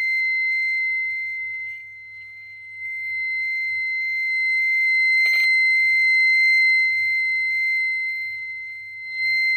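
Inductive probe of a cable tracker giving a steady high-pitched tone as it picks up the tracer signal, swelling and fading as it is moved along an ABS wheel-speed sensor wire to find a break in the wire. There is a brief click about five seconds in.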